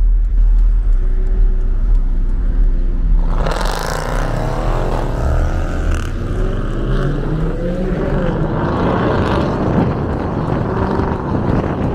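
Car engine running with a steady low drone. About three seconds in, a rush of higher noise joins and the engine's pitch slides up and down.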